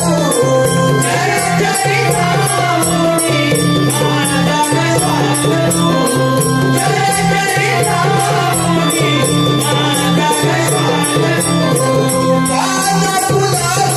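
A male singer performs a Marathi devotional song from Naman folk theatre live, backed by drums and a fast, even ticking of small percussion.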